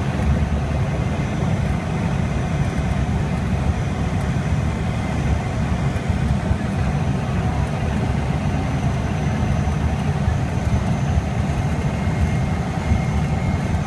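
Pilatus PC-6 Porter's engine and propeller running steadily at taxi power, heard from inside the cabin as a loud, deep drone with a faint high whine over it.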